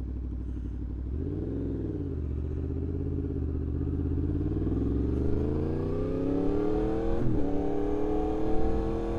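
Yamaha MT-10's crossplane inline-four through an aftermarket RaceFit Growler X exhaust. A quick throttle blip comes a little over a second in, then the revs climb steadily as the bike pulls away, with a brief break in the rise about seven seconds in.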